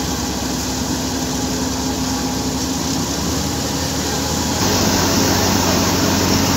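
Wheat thresher running steadily, a constant mechanical drone from its drum and belt drive while wheat stalks are fed in. It gets louder about two-thirds of the way through.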